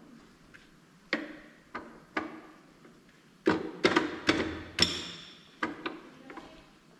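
Metal parts of a ZF 16 S 221 truck gearbox knocking and clinking against each other as they are fitted together by hand. It is an irregular run of sharp metallic knocks, thickest in the middle, a few of them ringing briefly.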